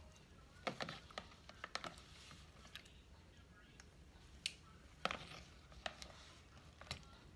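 Raw shrimp dropped by hand, a few at a time, into a pot of simmering gumbo: a series of short, sharp plops and splashes, about seven, irregularly spaced.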